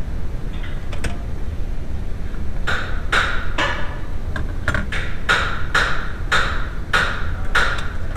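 A run of sharp knocks, about two a second, starting about two and a half seconds in, each with a short ring, over a steady low rumble.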